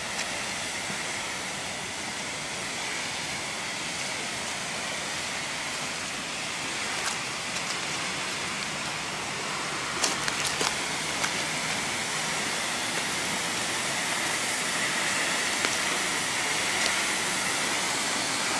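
Canal fountain jet spraying and splashing back onto the water: a steady rushing hiss that grows a little louder toward the end. A few short clicks about ten seconds in.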